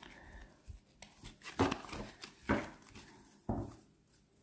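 A tarot deck being riffle-shuffled by hand: three quick riffles of cards about a second apart, with softer rustling of the cards between them.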